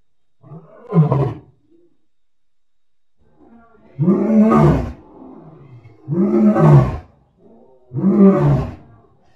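Lion roaring: one short roar about a second in, then after a pause three full roars about two seconds apart, each rising and falling in pitch, with softer grunts between them.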